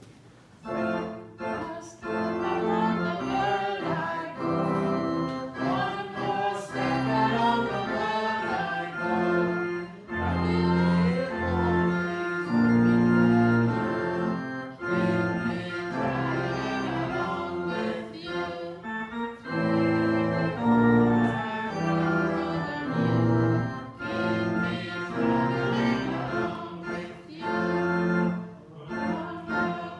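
Organ playing a hymn tune in full sustained chords that change every second or so.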